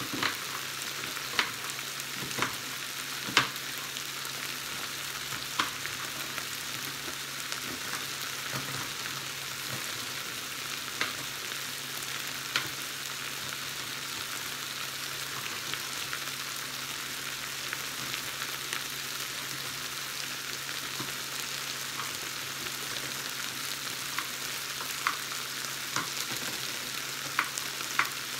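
Pork chops sizzling on a flat grill: a steady frying hiss, broken by a dozen or so sharp clicks, the loudest about three seconds in.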